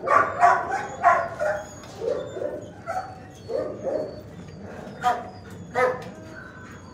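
Dogs in shelter kennels barking, a string of about ten barks with the loudest in the first two seconds.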